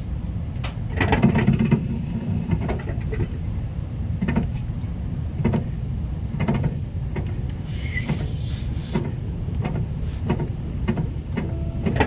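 Seibu 10000 series limited express train running, heard from inside the passenger car: a steady low rumble with wheels knocking over rail joints about once a second, often in quick pairs. A brief higher hiss with a short squeal comes about eight seconds in.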